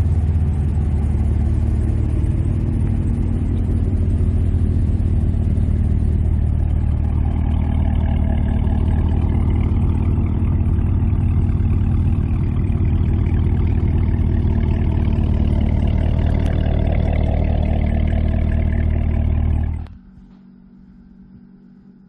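Supercharged V8 engines of a stock Corvette ZR1 and Shelby GT500 idling steadily through their exhausts. The engine sound cuts off abruptly about two seconds before the end, leaving only faint background.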